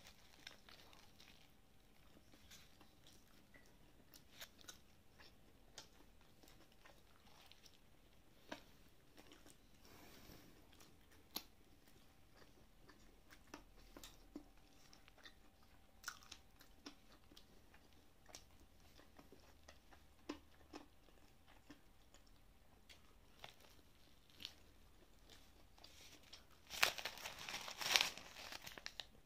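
Chewing a crispy fried chicken cutlet (Taiwanese jī pái), with faint scattered crunches. Near the end a louder burst of crunching comes as a fresh bite is taken through the crust, with the paper bag rustling.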